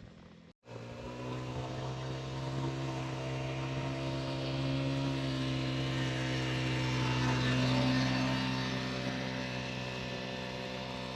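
A motor engine running at a steady speed with a constant low hum, growing slightly louder toward a peak about eight seconds in and easing off after. It starts abruptly after a brief dropout near the beginning.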